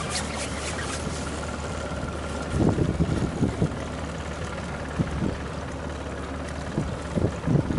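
Boat motor idling steadily under a low hum. From about two and a half seconds in, irregular low thumps of buffeting on the microphone break over it.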